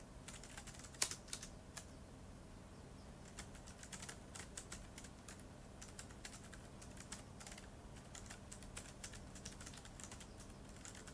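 Typing on a keyboard: faint, irregular key clicks in quick runs with short pauses, the loudest click about a second in.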